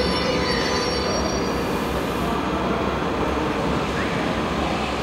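Train running through station tracks: the wheels squeal in several steady high tones that fade out about a second and a half in, over a continuous rolling rumble, with one short rising squeal near the end.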